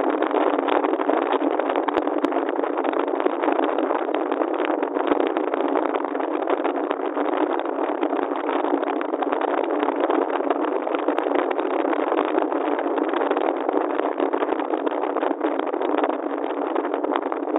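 Steady, even noise of a moving vehicle on a city street, a mix of engine, tyre and wind noise, holding level throughout.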